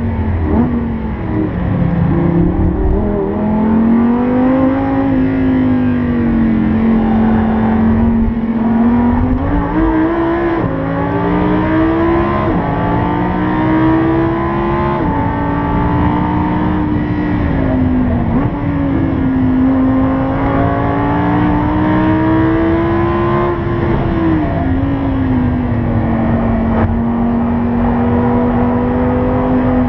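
Lamborghini Huracán's V10 engine heard from inside the cabin under hard acceleration on track: the pitch climbs and drops back at each upshift, falls away twice as the car slows, then pulls again.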